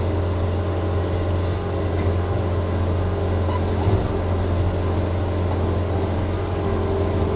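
John Deere 335P skid steer's diesel engine running steadily, heard from inside the cab, as it drives a power rake across the gravel.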